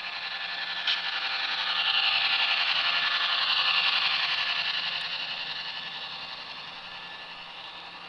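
HO scale model freight train rolling past, its metal wheels rattling and clattering over the track joints with a quick rippling beat. It grows louder as the locomotives and first cars pass, then fades as the rest of the train goes by, with one sharp click about a second in.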